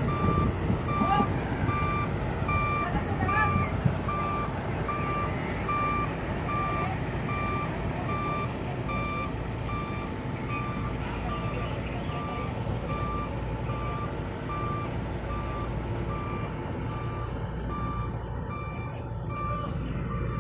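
Reversing alarm on heavy earthmoving equipment beeping in an even, steady rhythm over the low rumble of a diesel engine running.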